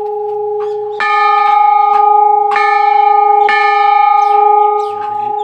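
Temple bell (ghanta) struck three times, a second or so apart. Each strike rings on into the next over a steady humming tone, and the ringing thins out near the end.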